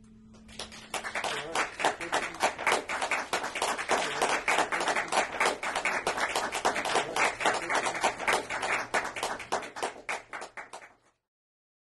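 Audience applauding, individual hand claps clearly separate, dying away near the end and cutting off abruptly.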